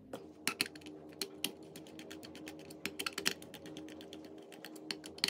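Light, irregular clicks and taps of a screwdriver working the terminal screws on an EMS surge protector's contactor, a few clicks a second. A faint steady hum runs underneath.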